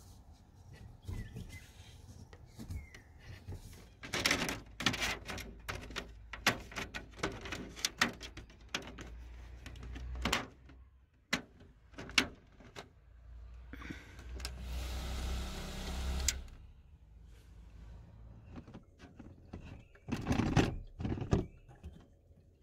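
A microfibre cloth wiping and rubbing the plastic blades and housing of a campervan roof vent fan, with scattered clicks and knocks as the parts are handled, and a steadier rubbing sound for about two seconds past the middle. Near the end come a few more clicks as the vent's winding knob is handled.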